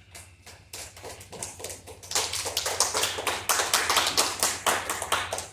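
A few people clapping, with dense irregular claps that build after about a second and are loudest from about two seconds in.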